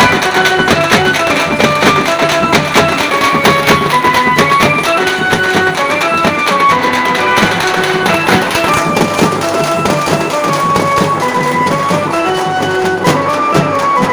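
A troupe of dappu frame drums beaten with sticks in a loud, dense rhythm, with a melody of steady held notes running over the drumming.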